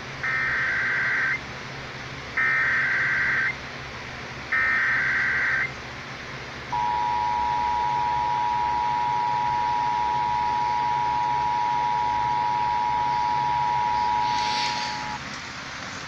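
Emergency Alert System Required Monthly Test played through a handheld weather radio's small speaker: three bursts of SAME header data tones, about a second each, then the two-tone attention signal (853 and 960 Hz sounded together) held steady for about eight seconds. Handling rustle comes in near the end.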